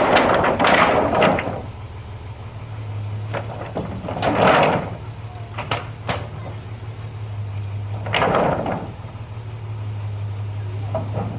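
Corrugated iron roofing sheets being slid and handled: three scraping, rattling bursts a few seconds apart over a steady low hum.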